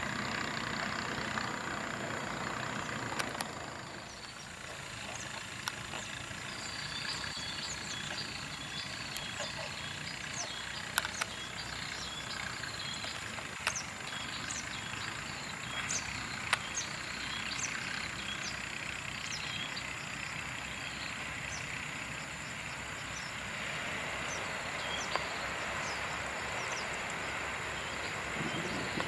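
Trackside ambience: a departing passenger train's rumble fades over the first few seconds. Short, high chirps then repeat through the quiet stretch, with a few sharp clicks. In the last seconds the running noise of an approaching KAI diesel-electric locomotive and its train builds up.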